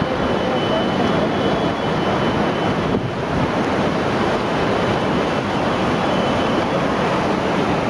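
Floodwater rushing past, a steady loud wash of noise with no breaks.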